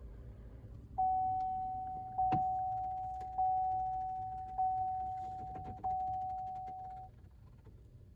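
A truck's warning chime sounds five times, each a single steady tone about a second long and 1.2 seconds apart. It goes off while a module is being reprogrammed. A sharp click comes a little after the second chime.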